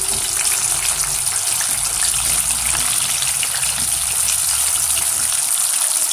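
Samosas deep-frying in hot oil: a steady sizzle with dense fine crackling.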